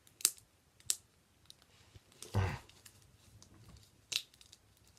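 Handling of a Blu-ray case and its contents: a few sharp plastic clicks, with a longer rustling scrape about two and a half seconds in and another click a little past four seconds.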